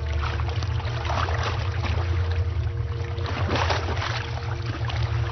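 Water splashing and sloshing as Nile crocodiles thrash and sink in the river, over a steady low drone.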